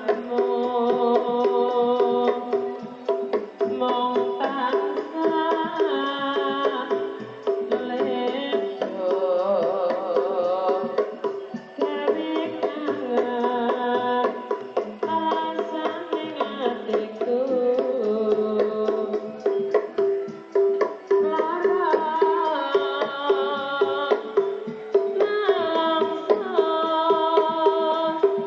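Recorded music with a melody over quick tabla-like hand drumming, played loud through a home-built speaker system during a sound check, coming through with little bass.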